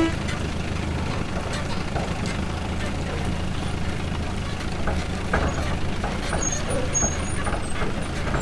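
Steady low engine rumble of a heavy vehicle, like a truck running, with faint scattered clicks and a few short high chirps in the second half.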